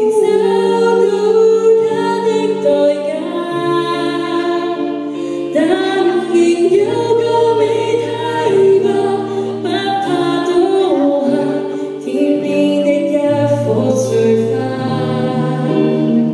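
A choir singing a song in harmony, several voice parts holding sustained notes together.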